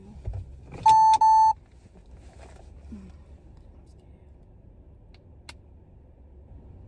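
Two short electronic beeps back to back, each a single steady pitch, clearly louder than everything else; afterwards only faint clicks over a low background rumble.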